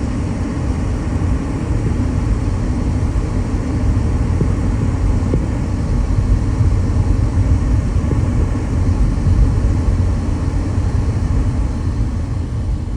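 Loud, steady low rumble of a vehicle driving, with no distinct tones or events.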